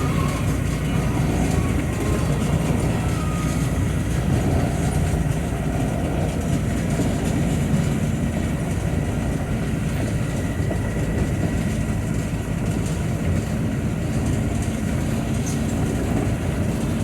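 Steady drone of a vehicle driving on a wet road, heard from inside the cab: engine and tyre noise with a hiss of spray and rain.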